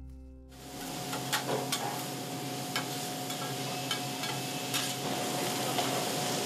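Food sizzling on a flat-top griddle in a steady hiss, with sharp clicks and scrapes of a metal spatula chopping and turning vegetables against the steel.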